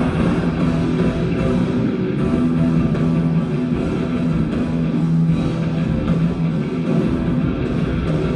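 Rock band playing: electric guitar, bass and drum kit, with sustained chords.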